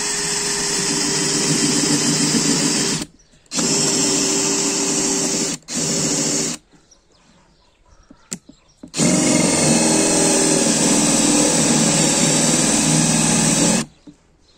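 Cordless DeWalt drill-driver boring a dull spade bit into very hard, dry raulí wood. It runs in three short bursts, pauses with a click, then runs steadily for about five seconds at its higher speed setting. The bit is blunt and labours in the dense wood.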